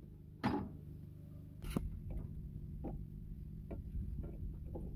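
A steady low hum with a few sharp clicks and knocks, the low rumble growing louder about one and a half seconds in.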